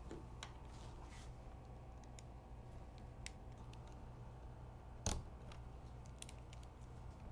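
Faint small plastic clicks and scrapes as the screw covers on a laptop screen bezel are pried out with a pointed tool, with one sharper click about five seconds in. A low steady hum underneath.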